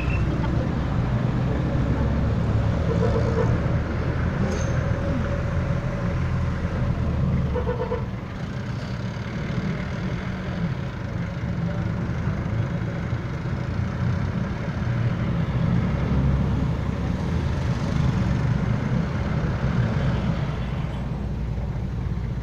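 Ride inside a jeepney in heavy rain: the diesel engine runs with a steady low rumble under a constant hiss of rain and road spray. Two short beeps sound about 3 and 8 seconds in.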